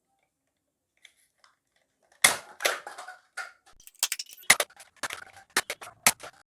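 Nerf Elite Disruptor slam-firing: with the trigger held, the priming slide is worked back and forth and each stroke fires a dart, making a quick, uneven run of sharp plastic clacks. The clacks start about two seconds in.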